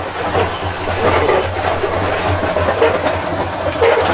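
Hand-cranked geared stirrer on a copper rakija still (kazan) turning the mash inside, giving a continuous mechanical rattle and grinding.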